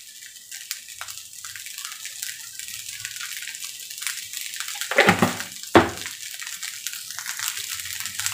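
Fried rice sizzling steadily in a metal kadai over high heat, with a couple of brief knocks about five and six seconds in.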